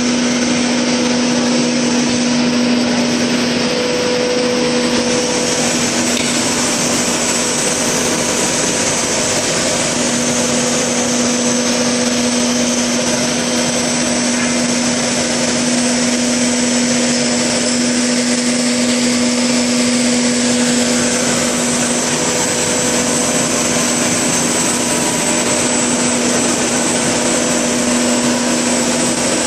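LDPE blown-film extrusion line running: a loud, steady rushing machine noise with a constant low hum and a thin high whine.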